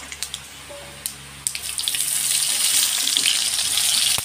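Sliced onions hitting hot oil in a kadai. A light crackle from the tempering oil breaks suddenly, about a second and a half in, into a loud, steady sizzle as the onions start to fry.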